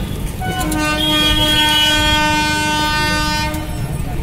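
A horn sounding one long, steady blast of about three seconds, over the rumble of a passing train.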